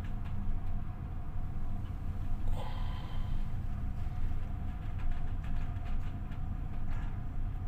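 Steady low drone of a ship's engine machinery, with a faint constant hum in it, and a brief higher-pitched sound about two and a half seconds in.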